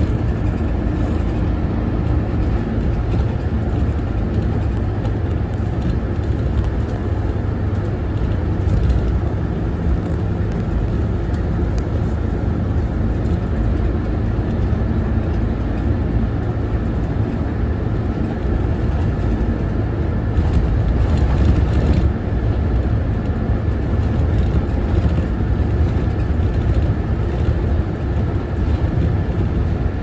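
Route bus driving, heard from inside the cabin: steady engine and road noise, a little louder for a couple of seconds about two-thirds of the way through.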